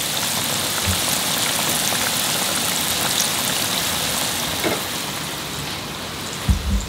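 Floured chicken breast pieces deep-frying in hot oil: a dense, steady crackling sizzle that eases slightly in the second half, with a few low bumps near the end.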